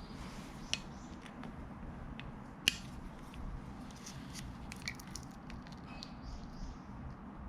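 Scattered light clicks and taps of hand work on parts, with one sharper click a little over two and a half seconds in, over a low steady hum.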